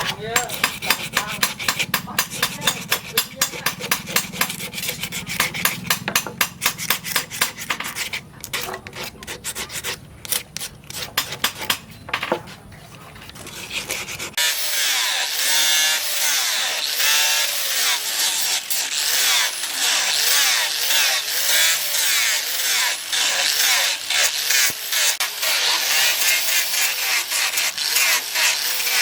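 Hand tool work on a small steel knife. For the first half there are regular scraping strokes, about two or three a second. About halfway through the sound switches suddenly to a steady, high, hissing scrape.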